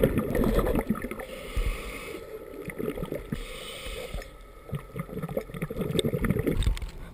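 Underwater gurgling and bubbling heard through a diving camera's housing, with scuba exhaust bubbles and water movement. A dense crackle of bubbles in the first second gives way to softer, scattered knocks and swishes.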